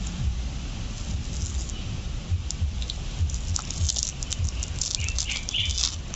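Wet, stringy pulp of a ripe palmyra palm fruit being pulled off the seed by hand: soft squelching and a run of crackling clicks, thickest from about three to six seconds in, over a low rumble.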